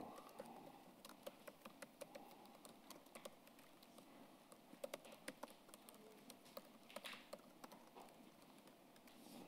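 Faint typing on a computer keyboard: irregular runs of quick keystrokes.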